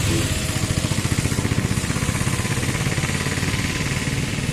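An engine running steadily with a rapid, even low throb.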